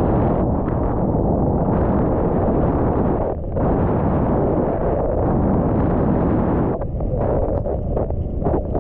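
Wind buffeting the camera's microphone: a loud, rough rumble that drops out briefly about three and a half seconds in and turns choppy in the last two seconds.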